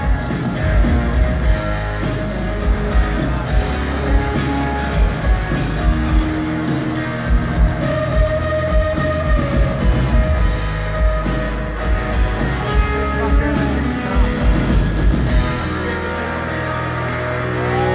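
Live rock band playing an instrumental passage: strummed acoustic guitar, electric guitars and a drum kit keeping a steady beat. The drum beat stops near the end while the guitars ring on.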